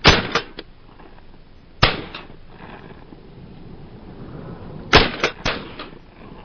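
Shotgun shots at ducks on the water: one right at the start, another just under two seconds in, and a quick pair about five seconds in. Each is trailed by a few fainter cracks.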